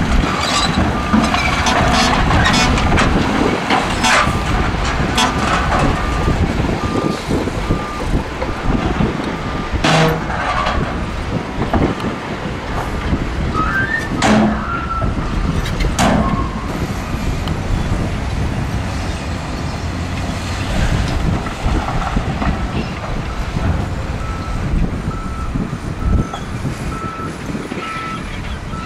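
Heavy diesel dump trucks and a wheel loader running. Rock and dirt clatter as loads slide off raised dump beds, with a few sharp bangs about ten, fourteen and sixteen seconds in. A reversing alarm beeps steadily near the start and again over the last few seconds.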